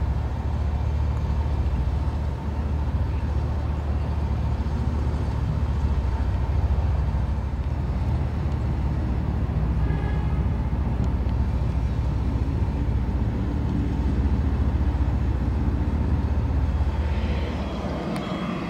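Steady low rumble of airport background noise with a faint high whine.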